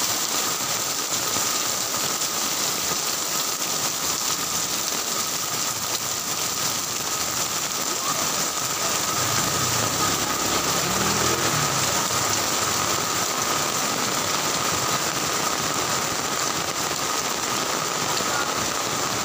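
Heavy rain pouring steadily onto the street and roofs, an even, unbroken hiss. A vehicle's engine adds a low rumble for a few seconds around the middle.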